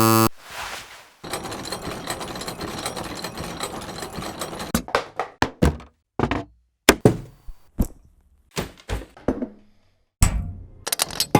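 A string of separate short sound effects: a brief buzz at the start, a few seconds of dense rattling, then a run of sharp knocks and thunks with silent gaps between them.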